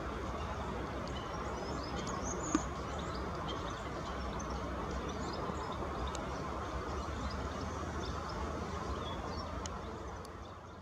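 Steady background noise with faint, scattered short high chirps from European goldfinches, and a single sharp click about two and a half seconds in.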